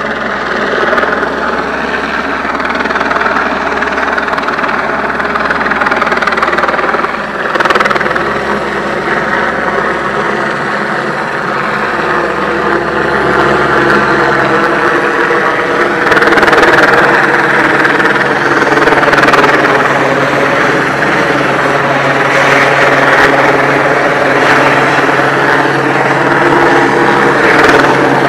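Helicopter flying low overhead: a steady rotor and engine drone holding several fixed tones. It grows louder from about halfway through as the helicopter comes closer.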